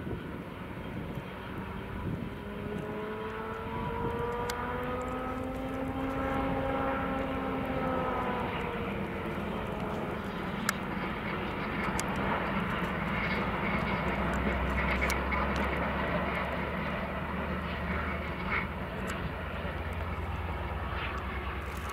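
Distant engine drone over a steady outdoor rumble, with a pitched hum that rises and falls again between about two and nine seconds in. A low, steady hum comes in about two-thirds of the way through.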